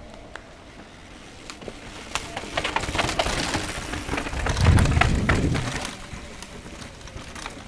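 Mountain bike rattling down a rock-strewn descent, its tyres and frame clattering over the stones. It grows louder as it passes close about four to five seconds in, with a low rumble at its peak, then fades.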